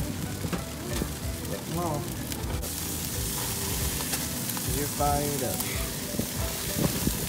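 Burger patties sizzling on a grill, a steady hiss that grows louder and brighter about two and a half seconds in.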